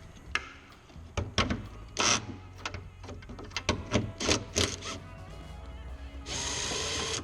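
Tools clicking and knocking on metal, then a power tool running steadily for about a second near the end, over background music.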